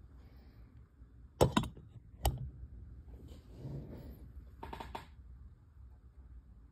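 Handling noise at the speaker terminals on the back of an AV receiver as speaker wire is fitted: a few sharp clicks, about a second and a half in, at two seconds and near five seconds, with soft rustling of the wire in between.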